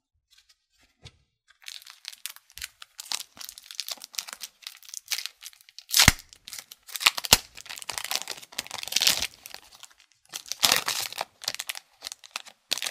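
Foil wrapper of a Tim Hortons Upper Deck hockey card pack crinkling in the hands and being torn open, with sharp loud rips about six and seven seconds in and another loud stretch of crinkling near eleven seconds.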